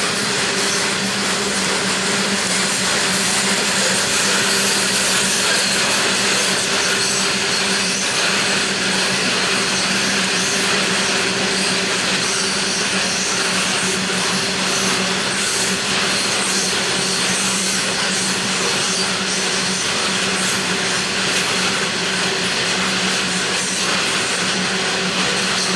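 Loaded coal hopper wagons rolling past at a steady speed: continuous wheel-on-rail noise with a steady low hum running under it.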